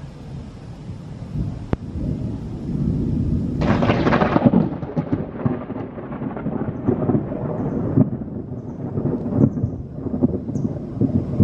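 Rolling thunder: a low rumble builds over the first few seconds, breaks into a crackling crash about four seconds in, then keeps rumbling with smaller cracks.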